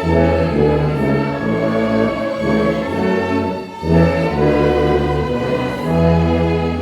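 Church orchestra playing a hymn in slow held chords, with a tuba's strong sustained low notes in the bass and voices singing along.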